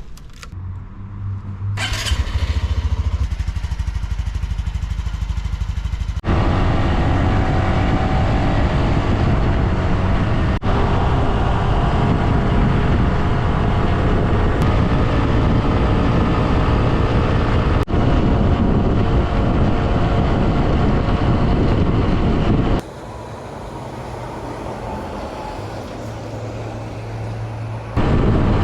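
Honda CT125 Hunter Cub's single-cylinder four-stroke engine running on the move, with road and wind noise, in several clips joined by sudden cuts. A quieter stretch of steady engine sound comes near the end.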